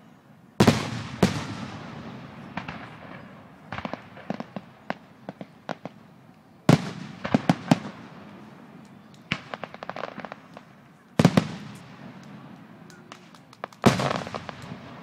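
Fireworks going off: five loud bursts, each followed by a rolling rumble, with clusters of quick, sharp crackling pops in between.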